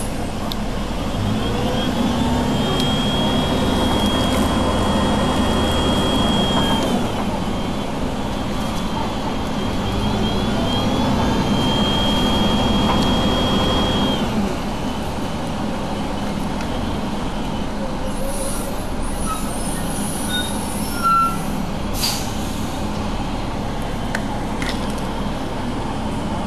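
Double-decker bus engine and gearbox running under way. During two louder stretches of pulling, one near the start and one near the middle, a high steady gear whine sits over the engine. After that it runs more quietly, with a short hiss late on.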